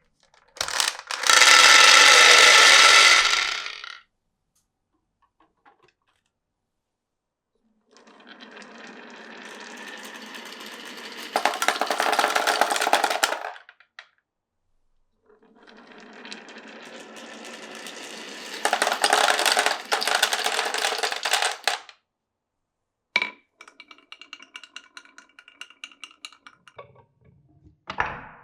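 Glass marbles running through a wooden marble run. A loud rolling clatter comes first, then two longer runs that each build from a low rumble to a louder clatter, then a sharp click and a quick series of small ticks, and a knock near the end.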